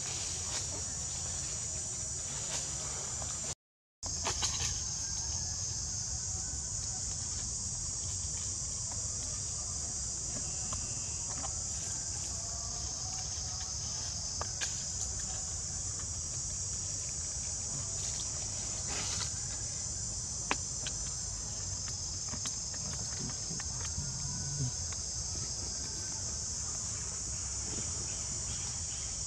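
Steady high-pitched drone of an insect chorus in the forest, with a low rumble beneath it and scattered faint clicks and rustles. The sound cuts out for a moment about three and a half seconds in.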